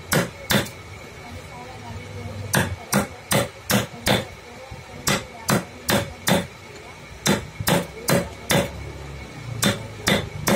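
Carving chisel being struck by hand into hardwood: quick sharp taps at about two and a half a second, in runs of four or five with short pauses between.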